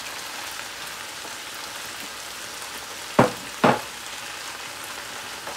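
Shredded cabbage, celery, onion and carrot frying in olive oil in a large pan: a steady sizzling hiss. About three seconds in come two sharp knocks, half a second apart, of the stirring spatula against the pan.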